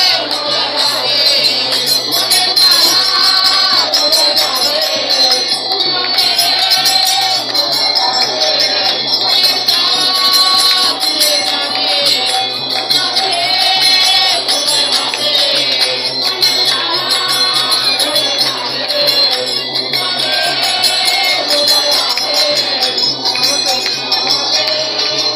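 Live music from a seated group: a harmonium and a hand drum with steady metallic jingling and a voice singing.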